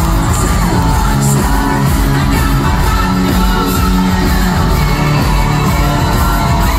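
Loud live pop music over an arena sound system, with a singer's voice and the crowd shouting and cheering, echoing through the large hall.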